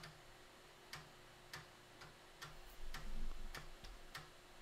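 5¼-inch floppy drive clicking about every half-second as its head steps while reading an MS-DOS boot disk, with a faint low rumble around the middle.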